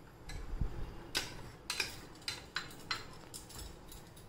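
A red plastic spoon scraping and tapping against a small glass bowl as chopped onion is spooned out of it, a string of short, irregular scrapes and clicks with a couple of soft low bumps.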